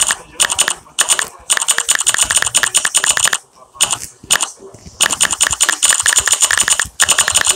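Rapid clicking of a smartphone on-screen keyboard's key-press sounds as a message is typed, in quick runs of many clicks a second with short pauses, the longest about halfway through.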